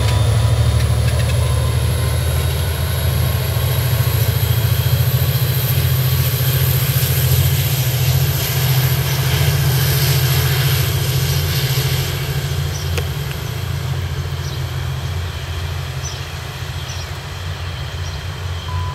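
EMD GP39H-2 diesel locomotive working under power as it pushes its passenger train away, a steady low engine drone with a faint high whine above it. The sound fades steadily from about twelve seconds in as the locomotive draws off.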